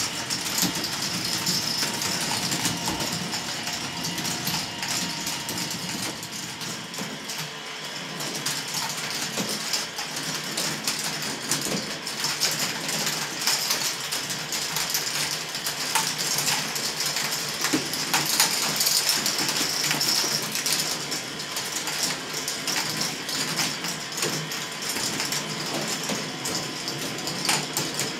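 Large K'nex ball machine running: its motors and gear-driven lifts going steadily, with many small clicks and rattles of plastic balls rolling and dropping along the tracks.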